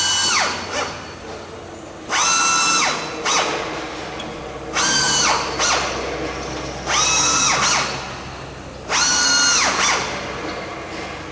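Pneumatic air drill run in short bursts of about a second, roughly every two seconds, each rising to a steady high whine and winding down as it drills into the aircraft's metal structure.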